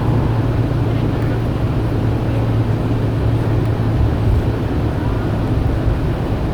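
Steady drone inside a charter bus cabin: a low engine and blower hum under the even rush of air from the HVAC vents.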